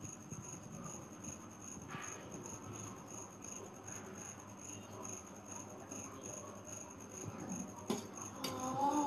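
Faint clinks and scrapes of a fork on a steel plate as noodles are eaten, with a few sharper taps near the end. A faint whine begins just before the end.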